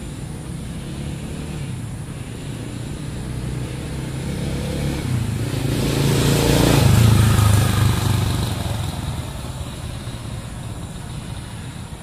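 A motor vehicle passing by: its engine hum and noise build over several seconds, are loudest about seven seconds in, then fade away.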